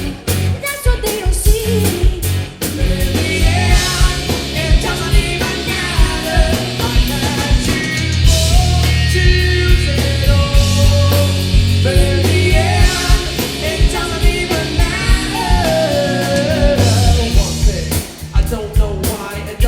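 Live rock band playing with drums, bass, keys and guitar, a singer's voice coming in a few seconds in over a steady drum beat.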